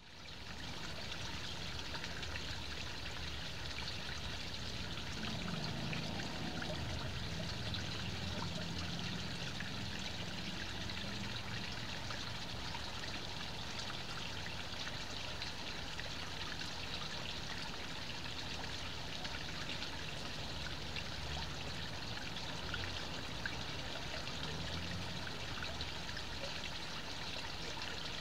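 Water trickling and splashing steadily as it runs over the rocks of a small backyard pond waterfall into the pond.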